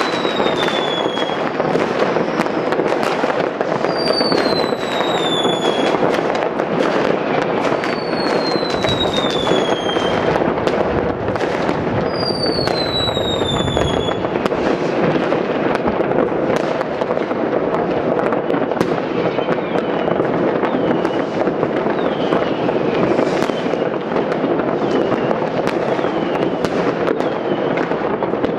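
Dense, unbroken crackling and banging of many distant fireworks and firecrackers. Loud falling whistles from whistling fireworks come about every four seconds in the first half, with fainter ones later.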